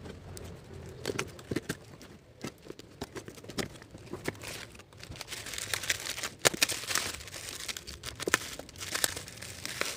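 A cardboard parcel being opened by hand: packing tape slit and box flaps pulled open, then bubble wrap and plastic crinkling and rustling as it is unwrapped, the crackle growing denser from about halfway.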